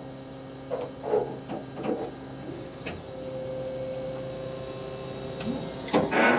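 A diesel engine idling with a steady hum, a few light knocks over it in the first couple of seconds and a short louder sound just before the end.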